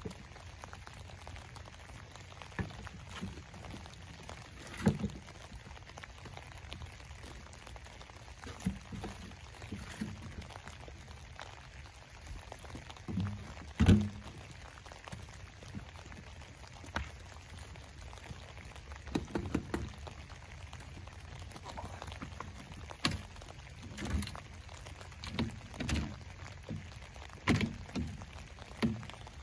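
Shovel digging soil out of a wheelbarrow and throwing it into a raised bed: irregular scrapes, thunks and the pour of dirt landing, the loudest thunk about halfway through. Near the end the wheelbarrow is tipped and its load of soil slides out.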